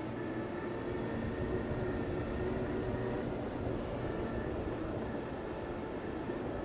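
Segway personal transporter rolling along, a steady hum and light whine from its electric drive over the low, even rumble of a large hall.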